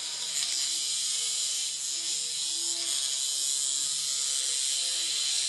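Hexbug vibrating bug toy buzzing steadily on a tile floor.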